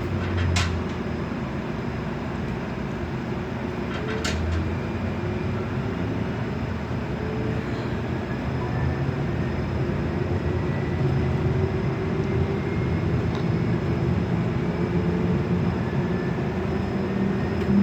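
Steady drone of a moving vehicle, its engine or motor tones slowly rising and falling. Two short coughs break in, about half a second in and again about four seconds in.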